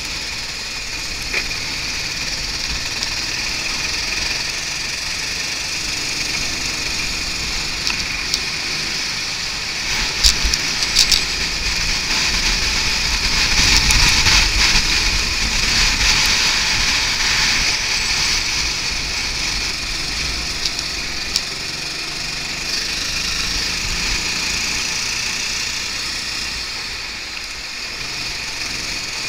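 Go-kart engine running under throttle, heard from the kart itself together with rushing wind and road noise. It swells louder around the middle, and a few sharp knocks come about ten to eleven seconds in.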